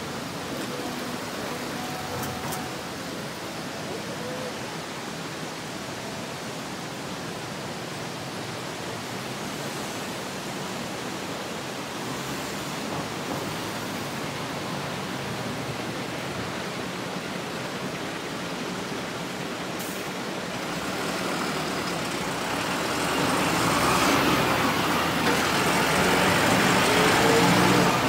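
Steady hiss of road traffic and moving vehicles, swelling over the last several seconds as a vehicle passes close by.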